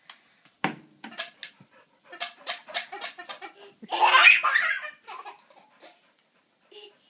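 A toddler laughing hard in quick repeated bursts, the loudest about four seconds in.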